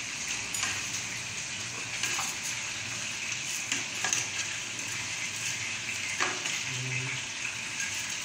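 Pancit canton noodles sizzling in an aluminium pot as they are tossed with a metal ladle and spoon: a steady frying hiss, with a few sharp clinks and scrapes of the utensils against the pot.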